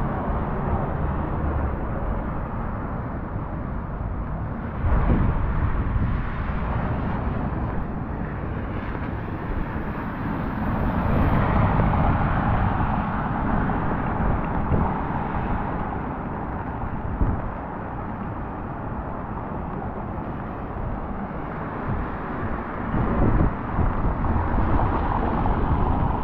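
Outdoor rain ambience with wind buffeting the microphone as a continuous rumbling noise. About ten seconds in, a car drives past on the wet cobblestones and its tyres hiss.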